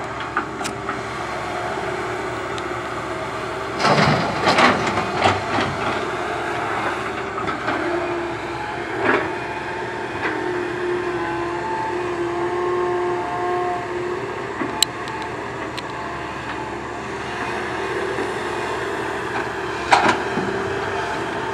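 Komatsu PC130 excavator's diesel engine and hydraulics working steadily under load, with a higher whine held for a few seconds in the middle. Loud clattering of rock and dirt about four seconds in as the bucket digs, and again near the end as a load is dumped into the dump truck's steel bed.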